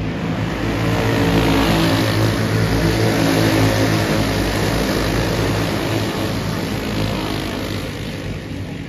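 A pack of small dirt-track race cars running at speed past the listener, many engines sounding together. The sound swells over the first couple of seconds and eases off near the end as the pack moves away.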